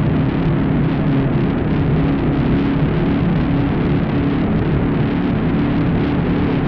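Synthesized riser sound effect: a dense low drone of stacked tones with a noisy layer above, holding steady in pitch and level.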